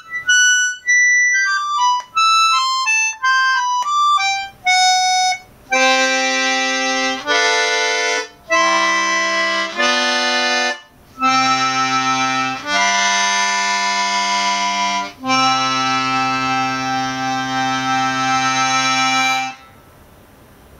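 Concertina playing: a quick run of single reedy notes, then a string of held chords, closing on a long final chord of about four seconds.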